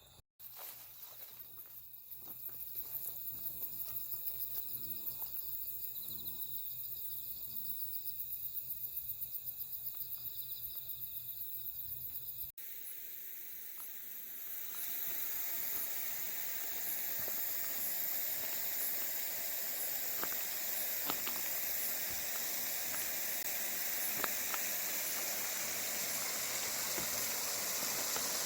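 Insects chirping in a fast, even pulse. About twelve seconds in, this gives way to a steady, full hiss that rises slightly and holds.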